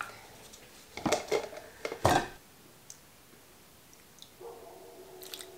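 Kitchen handling sounds: a few sharp knocks and clinks of containers and metal measuring cups set down on a wooden countertop between one and two and a half seconds in. Near the end comes a faint trickle of liquid poured from a bottle into a metal measuring spoon.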